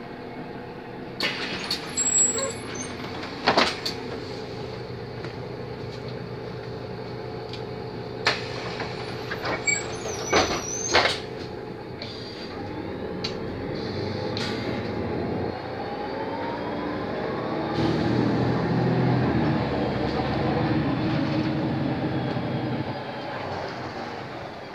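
Mercedes-Benz O 530 Citaro city bus heard from inside the passenger cabin: the engine runs steadily under scattered clicks and rattles. About halfway through, a rising whine sets in as the bus pulls away and gathers speed, and it runs louder toward the end.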